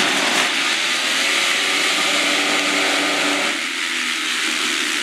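A pack of supermoto motorcycle engines revving together on a start grid, a loud dense mix of several engines at once, wavering in pitch. The deepest part of the sound thins out about three and a half seconds in.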